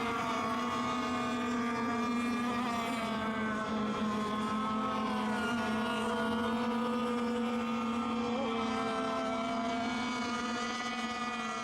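Several radio-controlled racing boats running laps together. Their motors make a steady, high buzz of overlapping pitches that drift slightly up and down as the boats change speed.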